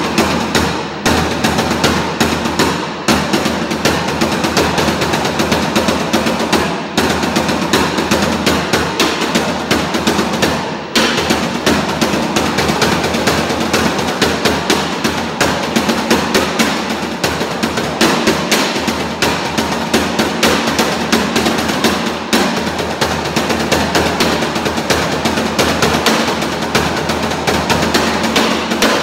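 Fast, unbroken percussive strikes, many a second, like rapid drumming, over a steady low hum.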